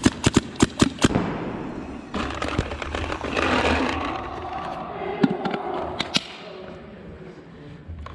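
Paintball marker firing the last shots of a rapid string, about five sharp cracks in the first second. After that comes a stretch of indistinct noise with a few more single sharp cracks about five and six seconds in.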